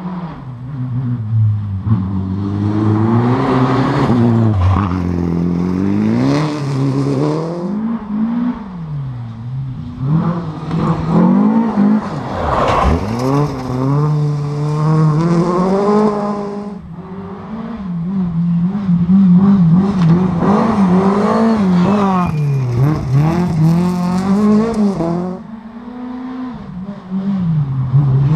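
Rally car engines on a gravel stage, the revs climbing and dropping over and over through gear changes and lifts for corners. One car passes about halfway through and another closes in near the end.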